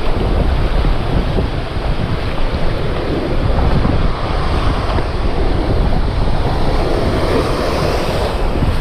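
Wind buffeting the microphone over breaking surf, a steady loud rushing noise that rises and falls unevenly.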